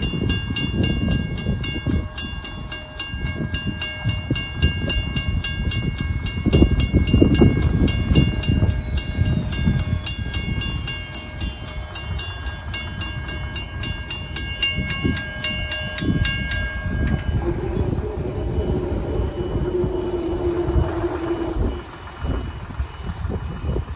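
A first-generation WCH mechanical crossing bell rings with several fast strikes a second, then stops abruptly about two-thirds of the way through as the crossing times out and cancels. Wind buffets the microphone throughout, and a steady hum follows after the bell stops.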